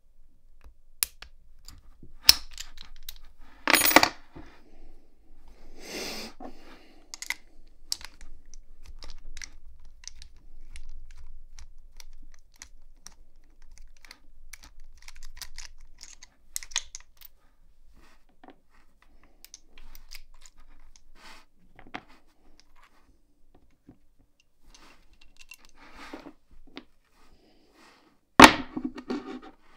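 Small metallic clicks and clinks from picking and handling an American Lock 1100 brass padlock, close-miked: a sharp click about two seconds in as the picked lock opens, then scattered clicks and handling as the shackle and cylinder are worked. Near the end there is a louder knock as the padlock is set down on the wooden board.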